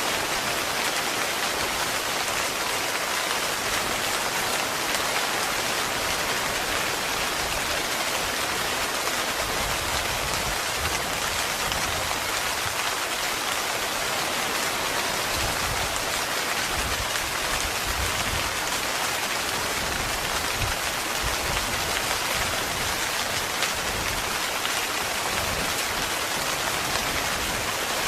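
Heavy rain falling steadily on a tent.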